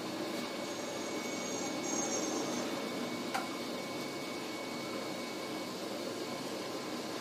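Steady whirring background noise with faint steady tones, typical of a fan or air conditioner. Two brief, faint, high-pitched chirps come a little over a second in, and a single faint click about three and a half seconds in.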